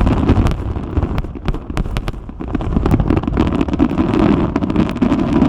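Fireworks display: many sharp pops and crackles in quick succession over a continuous low rumble of bursts.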